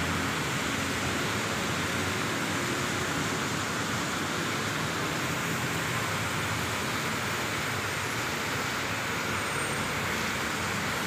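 Rain and traffic on a wet multi-lane highway: a steady hiss of rain and tyres on the wet road, with a low rumble of passing vehicles beneath.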